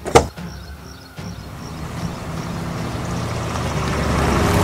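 A minivan's door slams shut once, then the van's engine runs, growing steadily louder as it gets under way.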